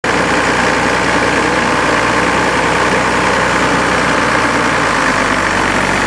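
Al-Jon Model 400 logger/baler's engine running steadily at an even, loud level.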